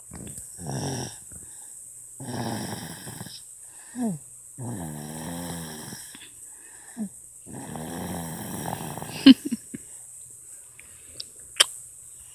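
A sleeping one-year-old baby snoring, a buzzing rasp on each breath about every two seconds, with short high squeaks between breaths. A few sharp clicks near the end.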